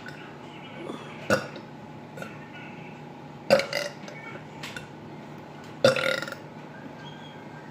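A woman burping deliberately three times, about two seconds apart: a short burp first, then two longer, drawn-out ones.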